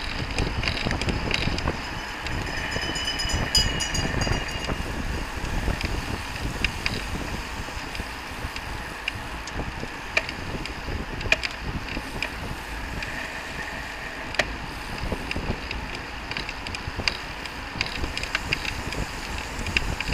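Wind buffeting the microphone of a camera on a moving road bicycle, over the rolling noise of a pack of road bikes. Occasional sharp clicks and rattles come through, and there is a brief high squeal about three seconds in.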